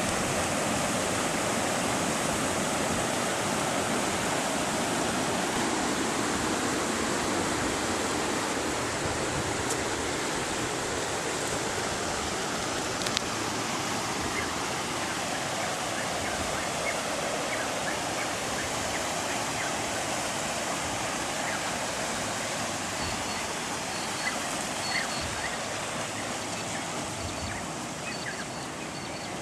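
Floodwater rushing steadily, a continuous rush that eases a little near the end. A few short high chirps come in over it in the last few seconds.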